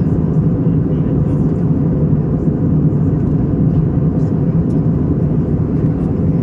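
Steady cabin noise of an Airbus A321neo in flight at altitude, heard from a window seat: a loud, even, low rumble of airflow and engines that does not change.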